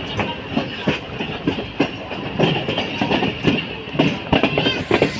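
Pak Business Express passenger train running on the track, its wheels clattering in irregular knocks over rail joints, with a steady high whine over the rumble.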